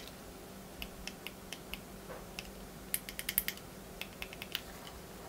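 Small switches in a lightsaber clamp switch box clicking as they are pressed and released: short sharp clicks, a few spaced ones at first, then a quick cluster about three seconds in and a few more after.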